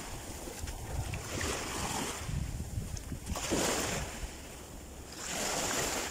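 Small waves lapping onto a sandy beach. Each wave washes up the sand with a soft rush, about every two seconds.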